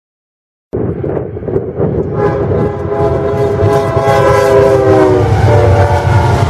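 Freight locomotive horn sounding a chord of several notes for about three seconds, its pitch sagging slightly as it ends, then sounding again briefly near the end, over the low rumble of a passing train. The train sound cuts in abruptly under a second in, after a moment of silence.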